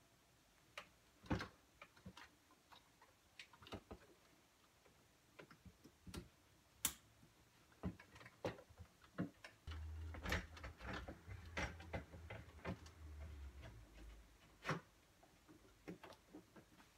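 Irregular light clicks and taps of hard plastic parts being handled and fitted, as a refrigerator's thermostat and control housing are worked back into place. A low hum comes in for about four seconds in the middle.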